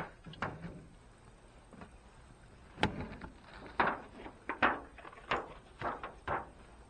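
Handling noises: a sharp knock at the start, then a string of short scrapes and knocks, one every half second to a second.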